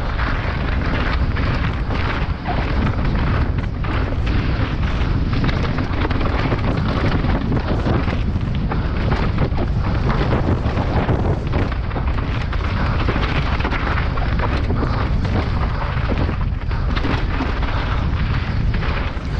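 Wind buffeting the microphone over a downhill mountain bike descending a rocky gravel track at speed: tyres rumbling on loose stones and the bike clattering over rocks and drops.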